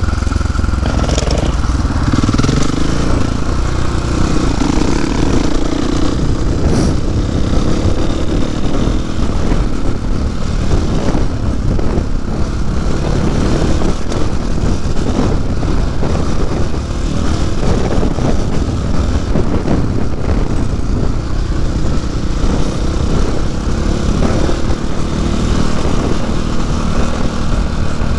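Dirt bike engine running steadily under way on a dirt trail, heard from the rider's own bike, its note wavering a little with the throttle, mixed with rumbling road and wind noise on the microphone.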